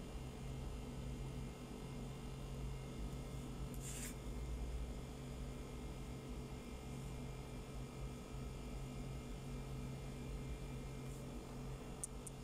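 Steady low hum over faint background noise, with a brief faint rustle about four seconds in and a couple of tiny ticks near the end.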